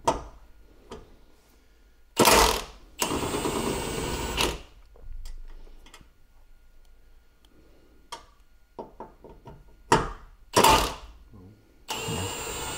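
A cordless power tool with a 10 mm socket runs in short spurts of a second or two, undoing the bolts that hold the front panel, with a few short bursts and light clicks of tool and metal in between.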